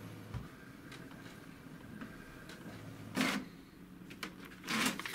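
HP DeskJet 2130 inkjet printer running with a faint steady hum as the printed test page comes out. In the second half there are two short, louder rustles of paper as the page is handled.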